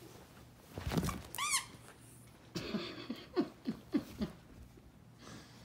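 Dogs play-fighting: a short high squeal about a second and a half in, then a quick run of short grunts and growls, each falling in pitch.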